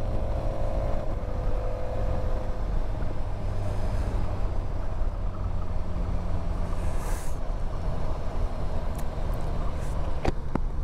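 Motorcycle engine running at road speed under a steady rush of wind over the camera microphone, with a faint engine tone fading in the first couple of seconds. A few short clicks come near the end.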